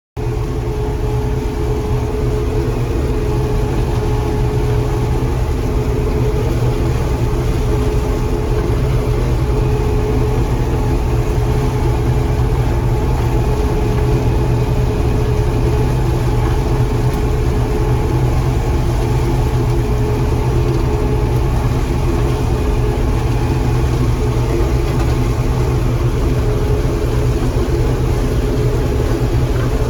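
John Deere 4400 combine running steadily while harvesting corn, a loud, even engine and machinery drone.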